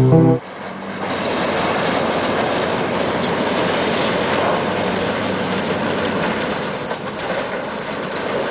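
Suitcase wheels rolling over hard ground, a steady, even rattling noise that starts about half a second in, when piano music cuts off.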